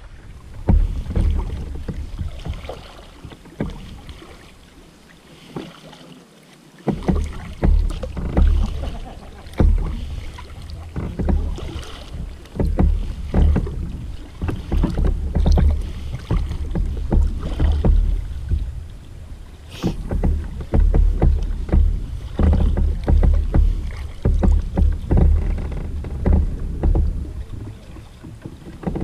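Sea kayak moving through the water, heard from a camera on its bow: water splashing and sloshing against the hull with the paddle strokes, over a low, gusty rumble of wind on the microphone. The rumble drops away for a few seconds about 3 s in, then returns.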